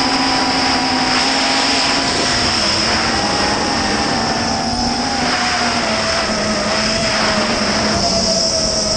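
Multirotor drone's motors and propellers whining steadily in flight, several tones drifting slowly lower in pitch over a rushing hiss.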